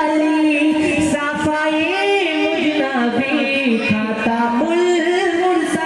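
Singing of an Urdu naat: a voice carrying a melodic line whose pitch bends and wavers between held notes.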